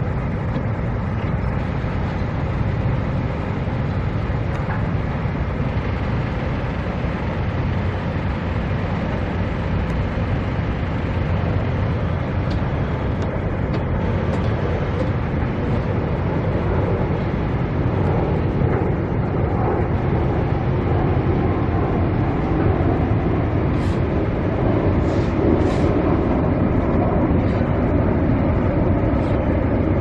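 Steady low rumble of vehicle and road traffic noise, with a few faint ticks near the end.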